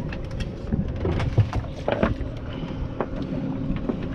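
Boat engine running with a steady low hum, with short knocks and clicks scattered through it.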